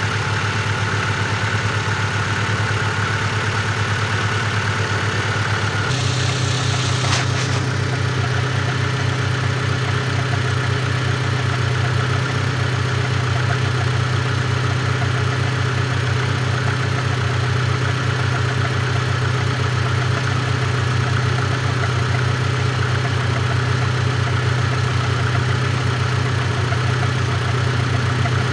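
Great Wall Safe SUV engine idling cold with a knock in it. About six seconds in the running note shifts and a steady high whine stops, with a brief click a second later.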